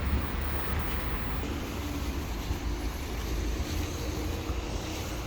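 Passenger train running: a steady low rumble with rail noise.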